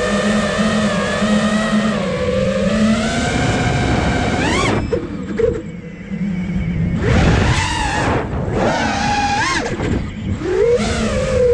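A 5-inch FPV freestyle quadcopter's motors and propellers whining with the throttle. The pitch holds fairly steady, climbs sharply about four and a half seconds in, then drops away to a quieter stretch. Near the end it comes back with several quick rises and falls as the throttle is punched and eased.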